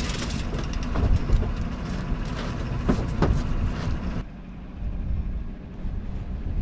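Truck engine idling, with a few knocks and clatters over its steady hum. About four seconds in, the sound suddenly drops to a quieter low rumble.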